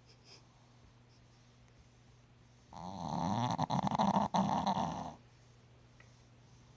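One loud snore, starting almost three seconds in and lasting about two and a half seconds, with quiet breathing before and after.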